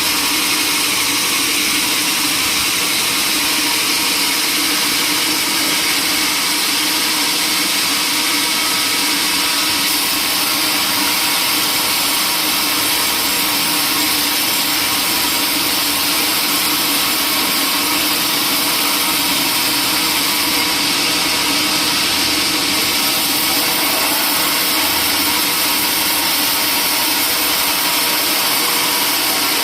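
Sawmill saw running steadily with its motor, a loud, even mechanical whine and hiss that does not change.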